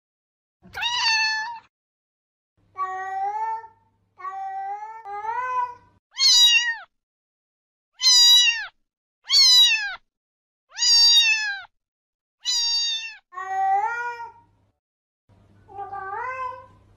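Domestic cat meows, about eleven separate calls in a row, each under a second long with silent gaps between them. Some are lower and rise in pitch; others are higher and drop away at the end.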